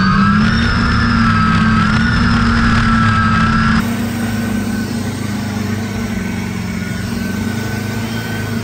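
Big mega-truck engines held at high revs, a steady high-pitched whine over a deep drone. The sound drops abruptly to a quieter, similar drone about four seconds in.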